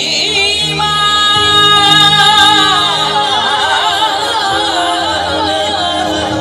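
Live devotional bhajan: a singer's ornamented, wavering vocal line over musical accompaniment, with some steady held notes in the first half.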